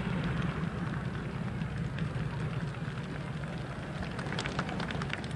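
Outdoor crowd noise over a steady low hum, with scattered hand clapping starting about four seconds in.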